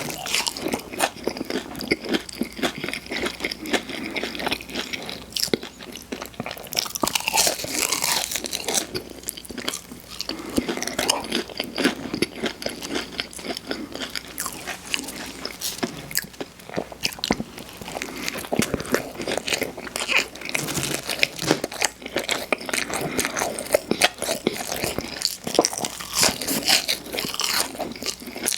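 Close-miked eating of Burger King fast food: a long run of crunchy bites and chewing, with dense, irregular crackling throughout.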